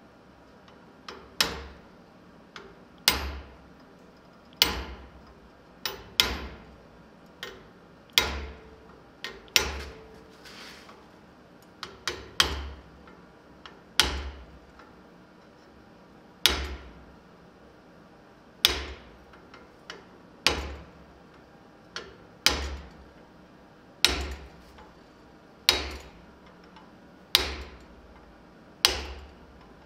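Hammer blows on glowing-hot steel clamped in a bench vise, shaping a skull on the end of a bar: sharp metallic strikes with a brief ring, spaced unevenly about one every one and a half to two seconds, some in quick pairs.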